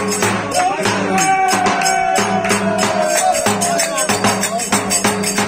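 Live folk dance music led by a davul bass drum beating a steady rhythm, with bright jingling percussion. About a second in, a melody instrument holds a long note that slowly slides down in pitch for a couple of seconds.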